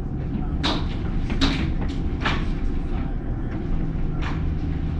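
Tornado wind heard from inside a house, a loud steady low rumble. About four sharp knocks stand out as the house is battered.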